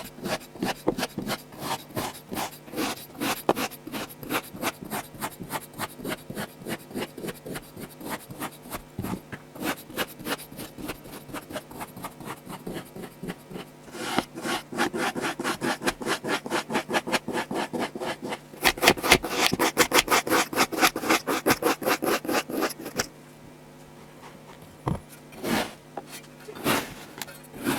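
Kinetic sand being scraped and cut with a tool: a steady run of crisp, gritty rasping strokes, about three a second. About halfway through the strokes come faster and louder. They thin out and go quieter near the end.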